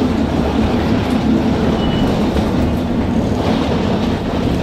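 Steady rush of air with a low hum inside an Airbus A320 cabin parked at the gate: the cabin ventilation running before departure.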